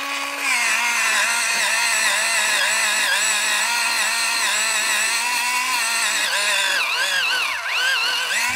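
X-ACTO Mighty Mite electric pencil sharpener's motor grinding a pencil. Its hum drops in pitch and wavers under the load of the blades cutting, dips lower for a moment near the end, then rises back as the pencil is eased off.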